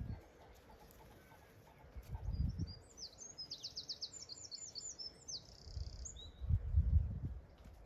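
A small songbird sings one short song about three seconds in: a quick run of high repeated notes ending in a buzzy note. Low rumbling bursts come at about two and a half seconds and again near the end, and these are louder than the bird.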